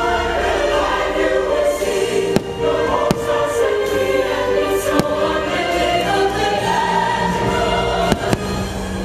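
Fireworks show soundtrack with a choir singing sustained swelling chords, while several firework bursts bang over it, two of them close together near the end.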